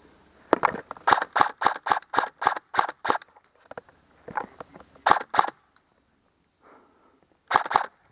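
Airsoft rifle firing single shots on semi-automatic: a quick string of about ten shots at roughly three a second, then two more a couple of seconds later and a last quick pair near the end.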